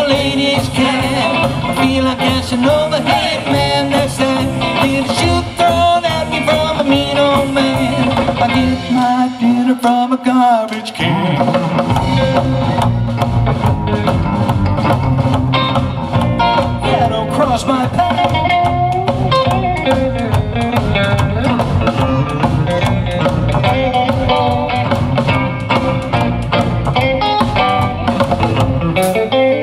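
Rockabilly band playing live: electric hollow-body guitar, upright double bass and drum kit. About nine seconds in, the bass and drums stop for a couple of seconds while the upper parts carry on, then the full band comes back in.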